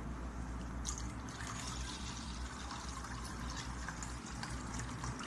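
Water being poured steadily into a stone-coated cooking pot, splashing and running as the pot fills.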